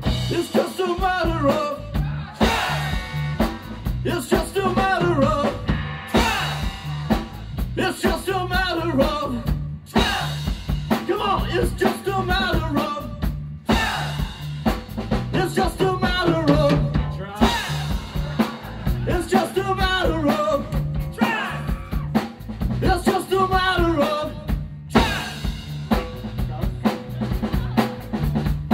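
Live band music: a drum kit keeps a steady beat under a pulsing bass line, with a wavering melodic lead line in phrases that repeat about every four seconds.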